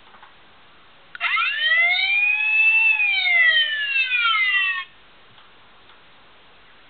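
Electronic sound effect from a Transformers Sentinel Prime Leader Class toy's speaker: one siren-like tone that starts about a second in, sweeps up sharply, arches over and slides back down, lasting about three and a half seconds.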